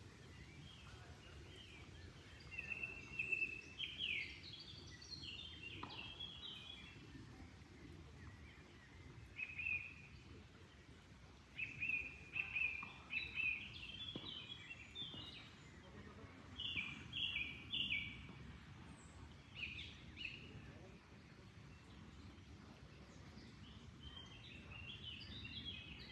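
Songbirds singing in repeated bursts of quick chirps and trills, over a steady low rush of flowing water.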